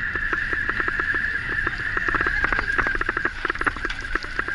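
Mountain bike rolling fast over a rough dirt trail: dense, irregular rattling and clicking over a steady high whine.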